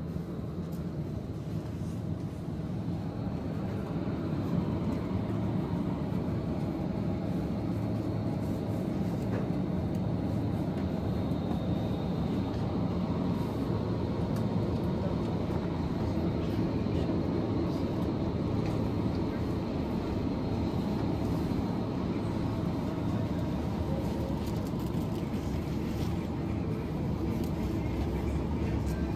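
Supermarket background noise: a steady low rumble that grows a little louder a few seconds in, with faint voices and a faint thin high tone in the background.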